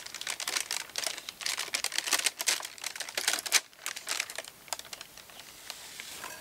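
Paper pollen bags crinkling and rustling as they are opened and tipped over a metal pot, a dense run of crackles that thins to scattered faint ticks about four seconds in.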